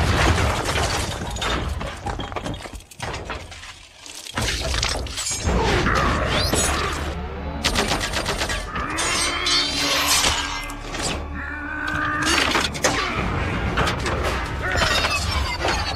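Movie sound effects of a giant-robot fight: a stone wall smashing apart with falling rubble, then repeated heavy metal impacts, scrapes and screeches, over orchestral score.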